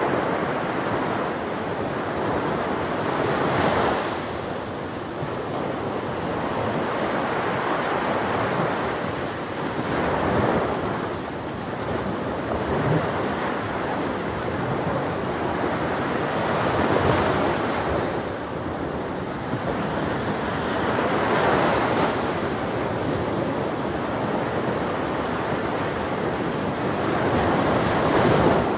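Ocean surf: waves breaking and washing ashore in a continuous rush, swelling with a wave about every five to six seconds, with some wind on the microphone.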